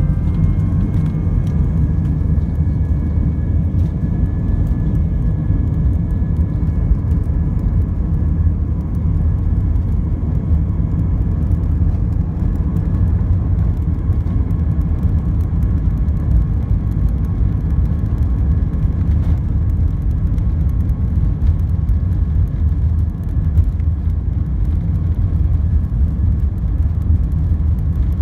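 Cabin noise of an Airbus A319 taxiing: a steady low rumble of the jet engines at idle thrust and the rolling airframe, with a faint high whine above it.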